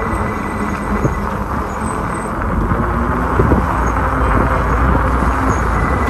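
Steady wind rumble on the microphone with road noise from the moving ride, loud and even throughout.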